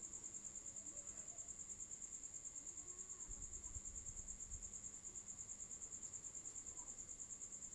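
A steady, high-pitched insect trill pulsing about nine times a second, with a few faint low thumps between about three and four and a half seconds in.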